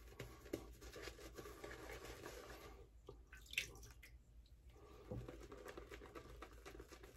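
Faint swishing and scratching of a badger-hair shaving brush working lather over the face and beard, with one soft click about three and a half seconds in.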